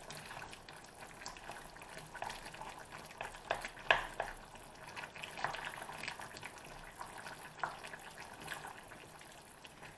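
A plastic spoon stirring a thick turkey stew in a stainless steel pan: soft, irregular scrapes and knocks against the pan, the loudest about four seconds in, over a faint steady hiss from the simmering pan.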